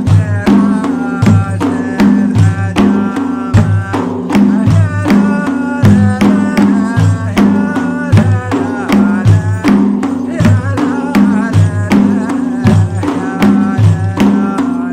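Samri folk music: frame drums beat a steady, even rhythm under a wavering melody line.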